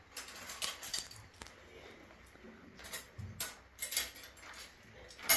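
Metal dishes and utensils clinking and clattering as they are handled, in irregular sharp clicks, the loudest right at the end.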